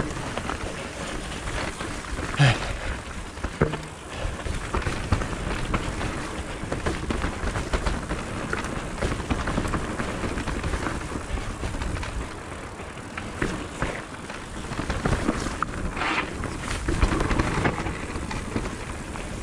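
Propain Ekano electric mountain bike ridden down a dirt trail: tyres running over the ground with a constant rushing noise, and frequent rattles and knocks from the bike, one louder knock about two and a half seconds in.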